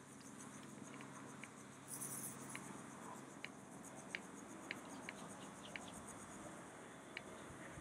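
Faint cicada chorus: a steady high-pitched buzz, with scattered short high chirps and a brief hiss about two seconds in.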